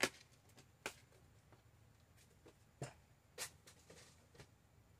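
A few light, separate clicks and taps of small craft items and containers being handled and set down on a work table.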